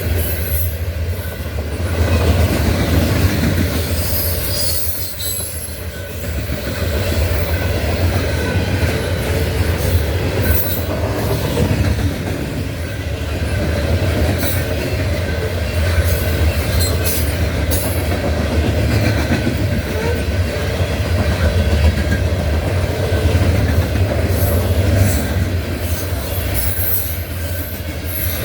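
Loaded coal cars of a long freight train rolling past with a steady low rumble, wheels clicking over rail joints and squealing now and then, most noticeably near the start and near the end.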